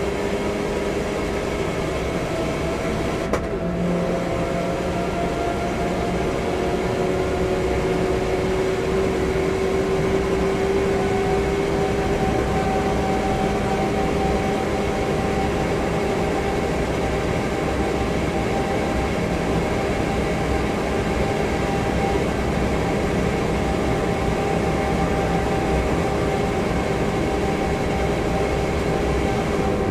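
Opel Corsa OPC's four-cylinder engine with a full exhaust pulling hard at speed, heard from inside the cabin over wind and tyre noise. A short break about three seconds in as it changes up, then the engine note climbs slowly and holds steady near flat out.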